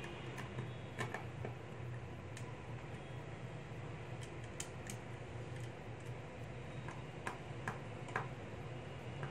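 Scattered light clicks and taps of 3D-printed plastic parts being handled and fitted together, about eight in all and the sharpest near the end, over a steady low hum.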